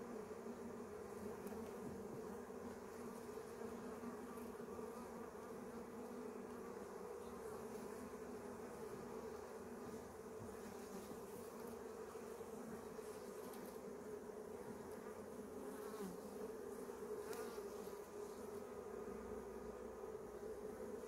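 Honeybee colony humming steadily in an open hive: the drone of many bees buzzing together.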